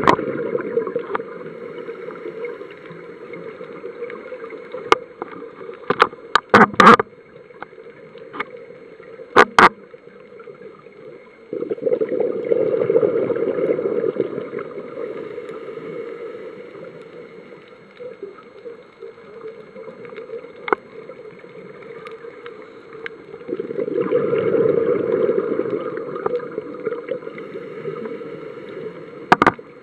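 Scuba diver breathing underwater through a regulator: two long rushes of exhaled bubbles about twelve seconds apart over a steady underwater hiss, with a few sharp clicks in the first third and one more near the end.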